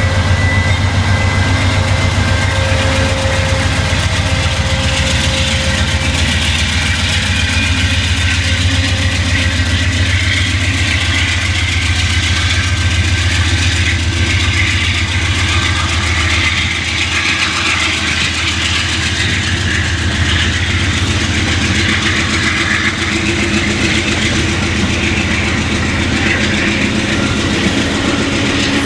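Amtrak P42DC diesel locomotive pulling a passenger train past under power, its engine a loud steady drone. About halfway through, the passenger coaches' wheels rumbling and clattering over the rails take over as the cars roll by.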